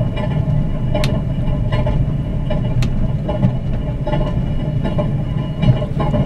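Spirit of the Outback passenger train running, heard from inside the carriage: a steady, loud rumble with a few short sharp clicks.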